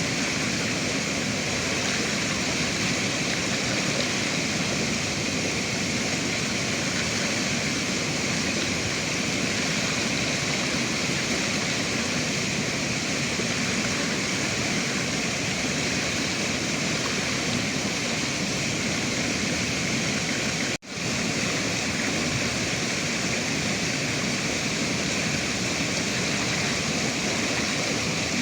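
River water rushing steadily, a dense even roar of flowing water, broken once by a momentary gap about two-thirds of the way through.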